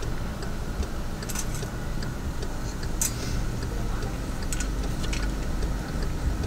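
Car cabin at low speed: the engine and tyres make a steady low rumble as the car creeps forward, with a few faint clicks roughly every second and a half.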